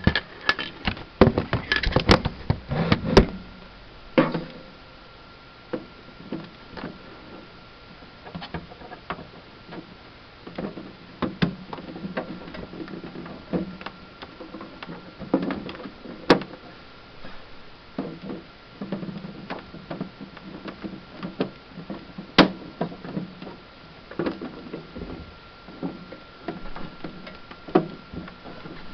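Plastic clicks and knocks from prying and popping out the retaining tabs of an iMac G3's plastic case and handling the case, a quick run of them in the first few seconds and then scattered ones. A faint steady high tone runs underneath from about four seconds in.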